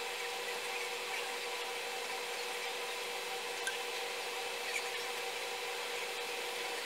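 Steady machine hum made of several held tones over a soft hiss, with a few faint ticks.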